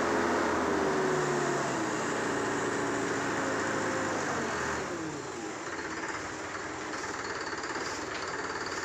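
Diesel engine of a mobile crane running, with a whine that slides down in pitch about halfway through, after which the engine is quieter.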